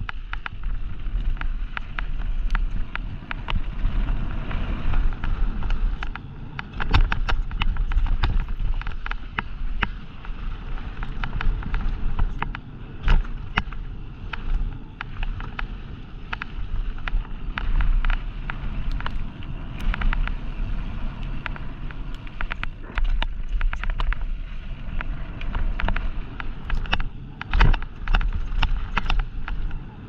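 Downhill mountain bike ridden fast over a dirt and gravel trail: tyres rolling over loose stones and frequent irregular clattering knocks as the bike rattles over rough ground, under steady wind noise on the microphone.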